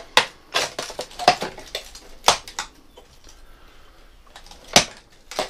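About ten irregular sharp clicks and knocks, bunched in the first three seconds with one more near the end: footsteps and small clatter on a debris-strewn floor.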